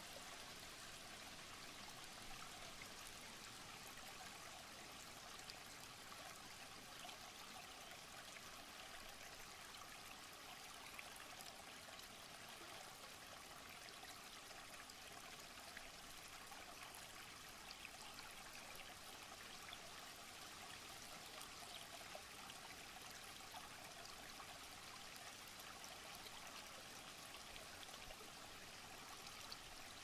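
Shallow rocky stream running over stones: a soft, steady trickle and babble of water.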